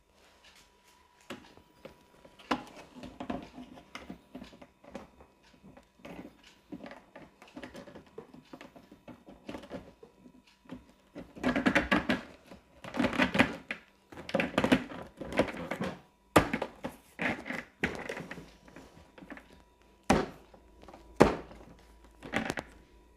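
Plastic panels of a Napolly locker-box cabinet being fitted and pressed together: a run of irregular knocks, taps and clattering thumps, busiest in the middle, then a few sharp clicks near the end.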